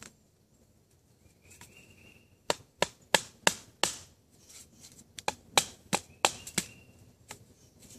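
A wooden baton stick striking the spine of a fixed-blade bushcraft knife, about a dozen sharp knocks a few a second starting about two and a half seconds in, with a last one near the end. The strikes drive the blade down through the wood to split it into smaller pieces.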